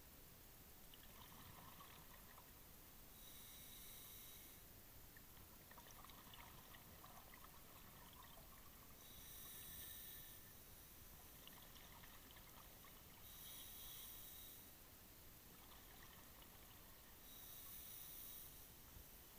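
Faint scuba diver breathing through a regulator underwater: a regular inhale-and-exhale cycle with a breath about every four seconds, each exhale a hissing rush of bubbles.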